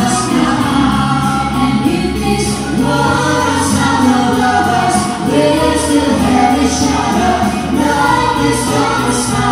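Live band performance: a vocal group of male and female singers singing a song in harmony over keyboard accompaniment, through a PA.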